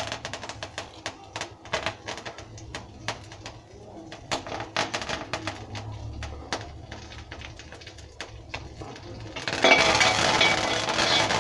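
Whole spices crackling and popping in a hot black iron kadai as they dry-roast, an irregular run of sharp little clicks. About nine and a half seconds in it grows much louder and denser as a metal spatula stirs and scrapes the pan.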